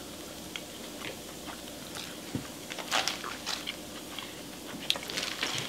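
Close-miked eating: a person biting and chewing a street taco in small corn tortillas, with soft wet clicks and crunches. A few louder clicks come about three seconds in and again around five seconds.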